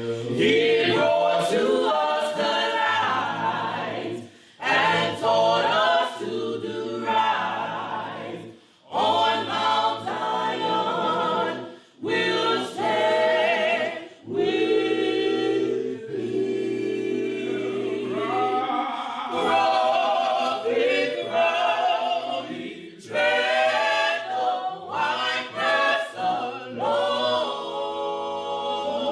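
A choir singing a cappella gospel in phrases a few seconds long, with short breaks between them and no instruments.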